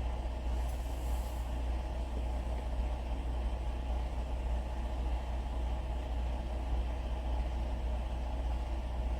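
A steady low mechanical drone, like an engine or motor running at idle, with no change in pitch or level.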